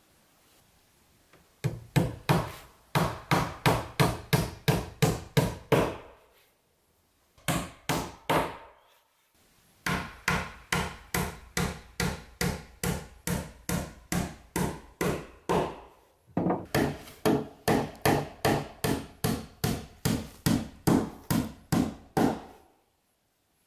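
Claw hammer driving nails into wooden gable-end cladding boards: sharp blows at about three a second, in four runs with short pauses between them.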